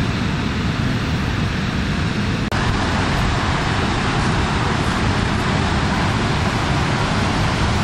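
Steady rushing of whitewater rapids below a river dam. About two and a half seconds in, the sound shifts abruptly and becomes hissier.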